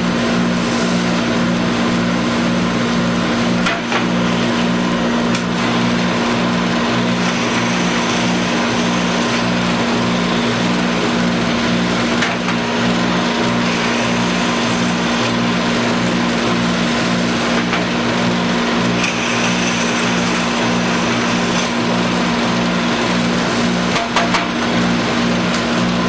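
Shop dust-collection vacuum and Shopsmith motor running steadily while holes are drilled in a board, the drill bit's chips sucked away through a drum sanding table insert. A few brief clicks and knocks stand out over the constant machine noise.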